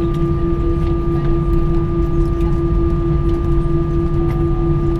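Steady cabin noise inside an Airbus A319 at the end of its arrival: a constant droning tone over a low rumble, with a few faint clicks.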